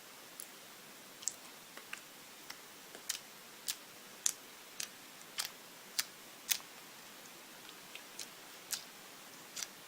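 Clear slime being pushed and pressed by hand, giving irregular sharp clicks and pops, about one or two a second.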